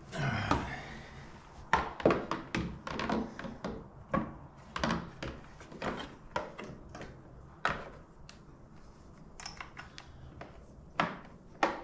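Motorcycle side cover being handled and pressed back into place on the frame: a scraping rub at first, then an irregular run of plastic clicks and knocks, loudest about two seconds in and twice near the end.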